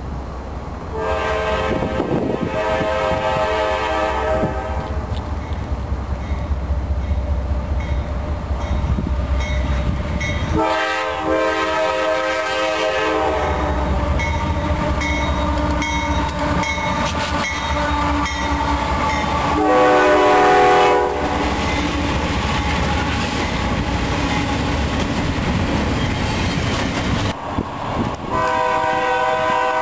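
Diesel freight locomotive horns blowing long crossing blasts several times, with the loudest blast, a different horn chord, about two-thirds of the way in. Under them runs the steady low rumble of a passing freight train.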